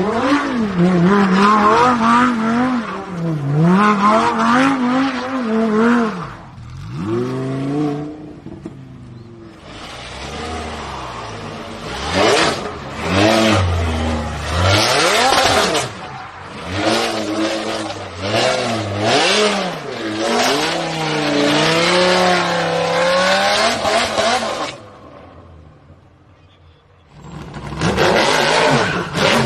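High-performance car engines revved hard in rapid swings up and down as the cars spin donuts, over the hiss of spinning tyres, one car after another; the first is a Lamborghini Huracán's V10. The engines drop away about 25 seconds in, then another car revs up loudly near the end.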